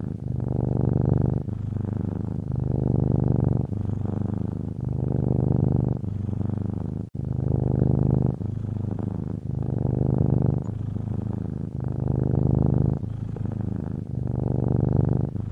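Domestic cat purring steadily, the low rumble swelling and easing in a regular rhythm about once a second. There is a sudden brief break about seven seconds in.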